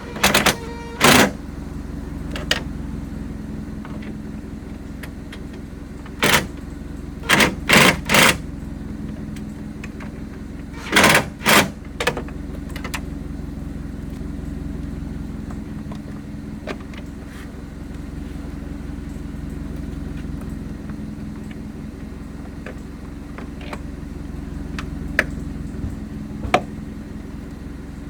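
A vehicle engine idling steadily, with a handful of short, loud sharp clacks of tools or parts being handled, several in quick pairs and threes during the first twelve seconds.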